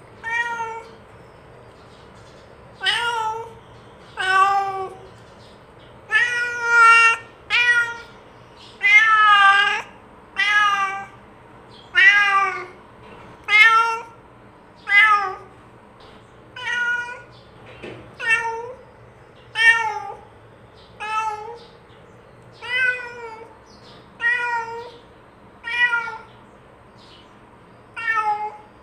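Domestic cat meowing over and over, about one meow every second and a half, each call bending in pitch, with a few longer, louder meows among them.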